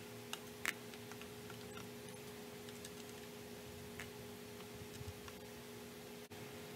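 Handling noise: a few sparse small clicks and taps as a thin metal rod and small parts are worked against a small instrument case and set down on the desk, the sharpest click just before a second in. A faint steady hum runs underneath.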